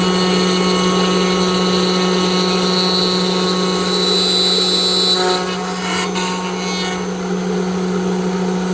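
CNC router spindle with an HSD angle aggregate running and cutting wood, a steady machine hum with a high-pitched whine. About five seconds in the whine drops away and a few brief rough cutting noises follow.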